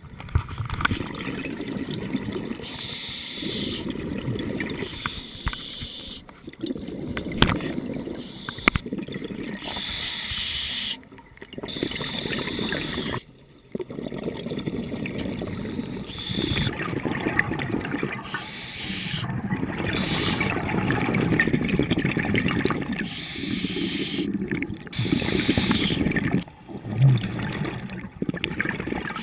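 Scuba diver breathing through a regulator, recorded underwater: repeated bursts of exhaled bubbles gurgling out, with hissing inhalations in between.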